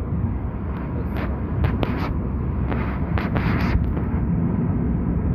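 Steady low road and engine rumble heard inside a moving car's cabin. Between about one and four seconds in there are several short, hissy sounds.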